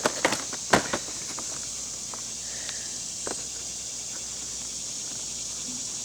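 A few sharp clicks and light knocks from handling a carded toy package with a plastic blister, clustered in the first second and a half with the loudest a little under a second in, then a couple of fainter ticks, over a steady hiss.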